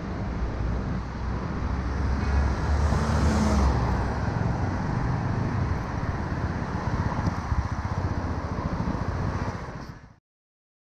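Road traffic on a city street: a steady low rumble of cars, swelling as a vehicle passes between about two and four seconds in. The sound fades out and stops about ten seconds in.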